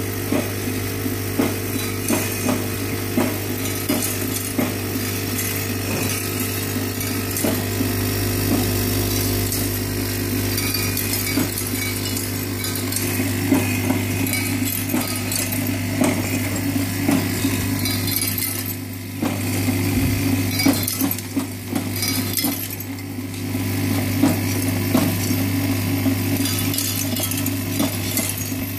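Vibratory bowl feeder running with a steady hum, full of loose axial-lead components that rattle and clink against each other and the bowl with many small metallic clicks as they travel round to the feed track of an axial lead cutting and forming machine.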